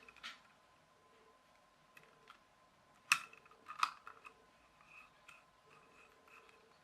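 Rubik's Cube being handled, giving a few scattered sharp plastic clicks, the loudest about three seconds in and a quick cluster just after.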